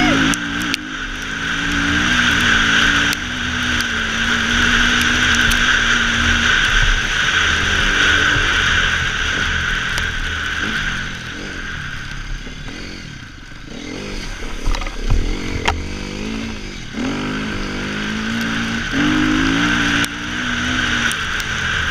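Dirt bike engine running while being ridden, the revs rising and falling with the throttle. It eases off a little past halfway, then picks back up.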